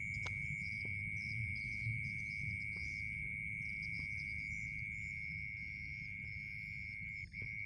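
Night insects calling: a steady high trill held on one pitch, with faster chirping insects higher up.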